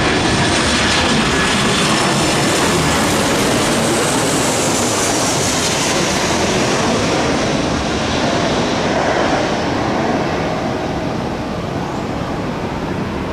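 Airplane engines running loud and steady with a rushing noise, and a high whine that glides down in pitch a few seconds in; the noise eases slightly near the end.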